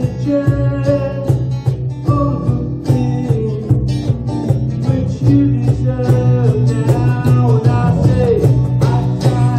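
Small band playing a song live: two strummed guitars and a mandolin over a steady cajon beat.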